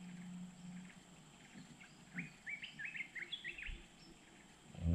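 A bird chirping a quick run of short, rising notes for a second or two, over faint outdoor background noise.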